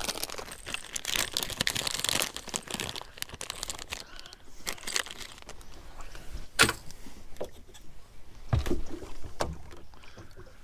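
Plastic bait packaging crinkling and rustling as it is handled, densest in the first three seconds. Scattered clicks and knocks of tackle follow, with one sharp click past the middle and a couple of dull knocks near the end.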